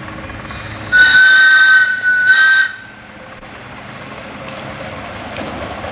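Whistle of a 7¼-inch-gauge miniature steam locomotive sounding twice in quick succession at one steady pitch, a longer blast of about a second followed by a shorter one.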